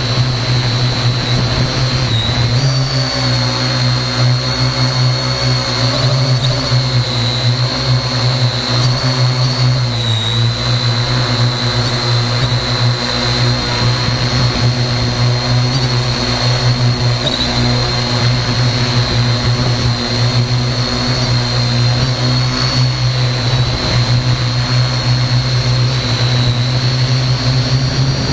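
Parrot AR.Drone quadcopter's motors and propellers running in flight, heard close-up from a camera mounted under the drone: a loud steady buzz with a high whine that dips in pitch now and then as the drone manoeuvres.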